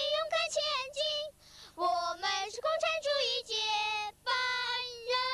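A young girl singing a Chinese song unaccompanied into a handheld microphone, one voice with long held notes and short breaths between phrases.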